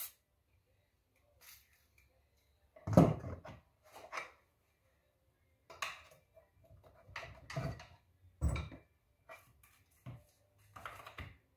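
Irregular metal knocks and clunks as a screwdriver is worked against the aluminium stator cover of a Honda 300EX engine to wedge it loose and the cover is lifted off the crankcase. The loudest knock comes about three seconds in.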